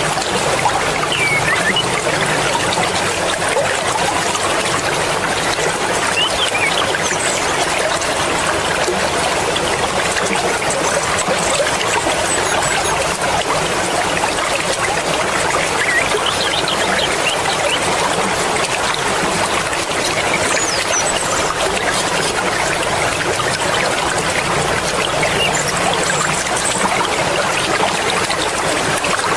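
Mountain river flowing fast, a steady rush and babble of water.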